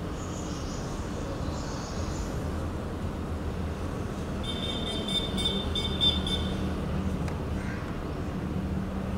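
Steady low background rumble with a faint hum. A brief high-pitched tone comes in about four and a half seconds in and lasts under two seconds.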